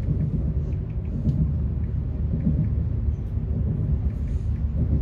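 Steady low rumble heard inside an ES2G Lastochka electric train as it runs along the track.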